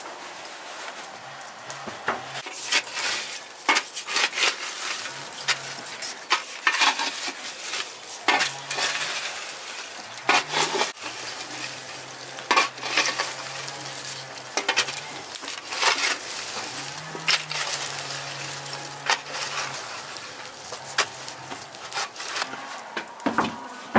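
Burning coals in a wood-fired tandoor being raked and stirred with a wooden stick: irregular crackling, scraping and knocking of embers against the oven's walls, in a string of sharp clicks.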